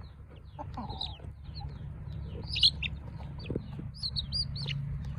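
Chicks peeping: many short, high calls one after another, over a steady low hum.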